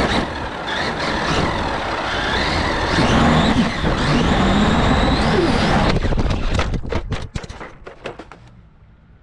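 Traxxas Maxx WideMaxx brushless RC monster truck running, its motor whine rising and falling over a loud rush of noise. About six seconds in the sound breaks into a quick string of clicks, then dies away.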